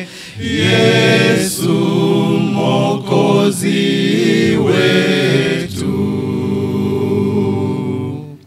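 Male vocal group singing a Swahili hymn a cappella in close harmony, with low bass voices under the tune. The phrase ends on a long held chord that stops just before the end.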